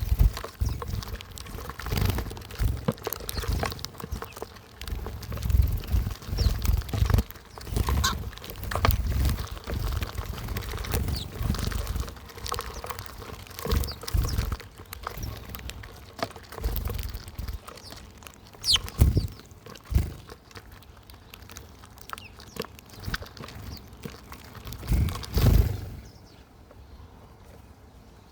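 Wild birds at a backyard feeder: an irregular run of clicks, knocks and wing flutters with a few short chirps. The sound drops away to a much quieter background near the end.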